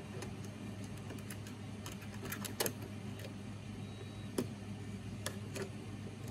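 Scattered small clicks and taps of a stepper motor and its 3D-printed mount being handled, loudest about two and a half seconds in and again near four and a half, over a steady low hum.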